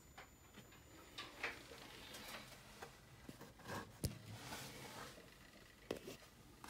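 Faint room noise with scattered light clicks and rustles, and one sharp click about four seconds in.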